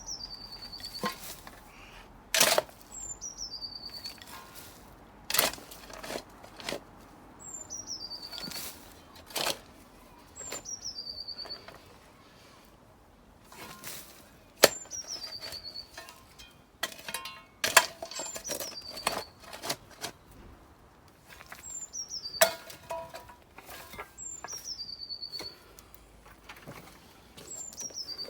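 Digging with a shovel in soil and rubble: sharp strikes of the blade, some of them loud, and a second or two of scraping every few seconds. A small bird sings the same short phrase of high notes falling in pitch about eight times.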